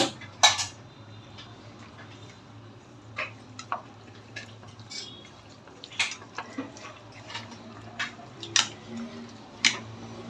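Kitchen clatter: a handful of sharp, irregularly spaced clicks and knocks of utensils against a bowl or pot, the loudest about half a second in, over a steady low hum.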